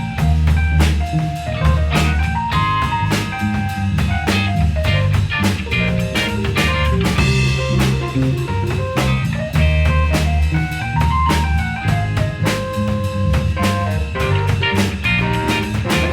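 Live band playing an instrumental passage with no vocals: a drum kit keeping a steady beat under bass notes and guitar lines.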